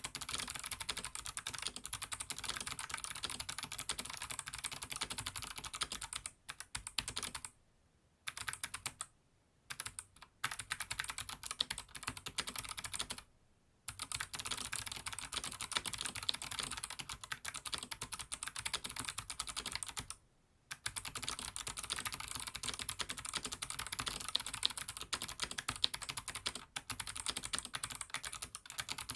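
Fast, continuous typing on a mechanical keyboard with clicky Kailh Box Jade (thick click) switches on an aluminum plate, a dense run of sharp key clicks broken by a few brief pauses.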